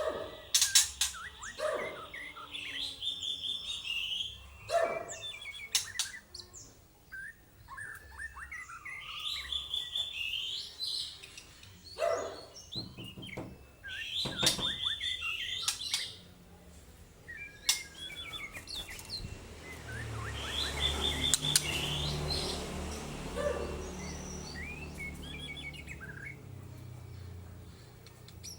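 A songbird chirping and singing in short, repeated phrases, with several sharp knocks in between and a stretch of low rumbling noise about two-thirds of the way through.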